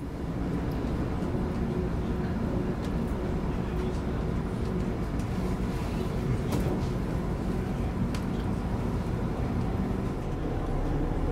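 Steady rumble of an S-Bahn commuter train heard from inside the passenger car as it runs at speed, with faint rail clicks.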